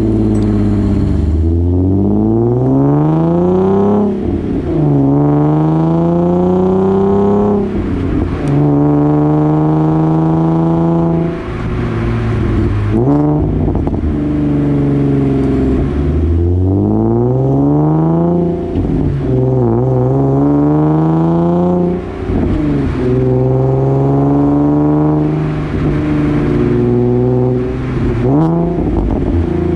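Exhaust note of a Nissan 370Z's 3.7-litre V6, heard right at the tailpipe with Invidia test pipes in place of the catalytic converters, so the exhaust is catless. The car accelerates through the gears several times: the pitch climbs through each gear and drops suddenly at each shift.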